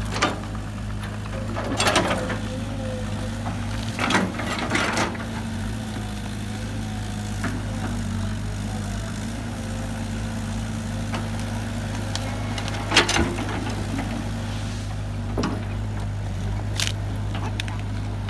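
Heavy diesel engine of construction machinery running steadily, with a few short metallic knocks and clanks along the way.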